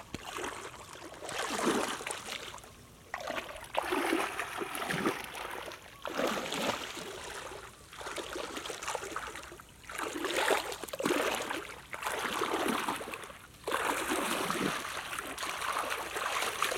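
Shallow muddy water splashing and sloshing as a person wades through it and gropes in it with their hands, in about seven surges a second or two apart.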